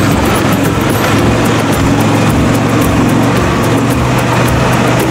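Argo amphibious ATV's engine running steadily under load as the machine drives over rough, boggy ground, heard from on board: a constant low hum with a fast, even clicking over it.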